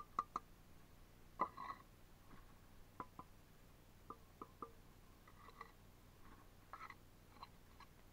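Steel brick trowel tapping and scraping against bricks and mortar while bricks are laid: about a dozen faint, short metallic clinks at irregular intervals, the loudest about a second and a half in.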